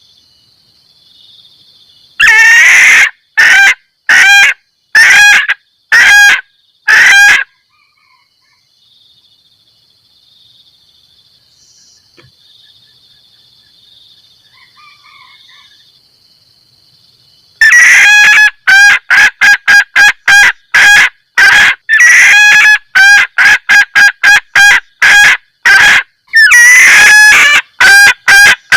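Female junglefowl giving its loud 'kekkek' mating call, the call that summons males: a bout of about six clucking notes, then after a long pause a faster, longer run of short notes. A faint steady high tone fills the gap between the bouts.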